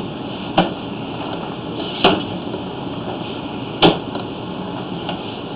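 Steady hiss broken by three short, sharp knocks, roughly a second and a half apart.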